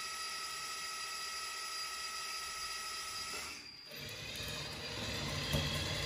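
Hydraulic pump of a radio-controlled Liebherr 926 Compact excavator model whining steadily as the upper structure swings round. It stops for a moment past halfway, then starts again with a rougher, deeper sound.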